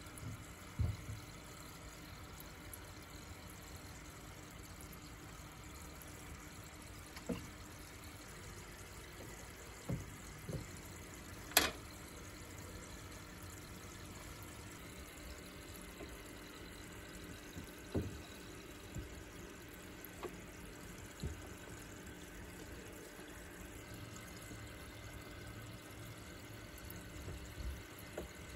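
Turtle tank water bubbling and trickling steadily at the filter outlet, with a few scattered knocks and splashes as things are moved in the water; a sharp click a little under halfway through is the loudest.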